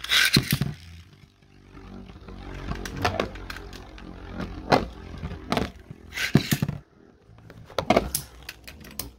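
Two Beyblade spinning tops, Storm Pegasus and Archer Gargoyle, are launched with a loud ripping burst, then spin with a steady whir in a plastic stadium. They clack sharply against each other several times.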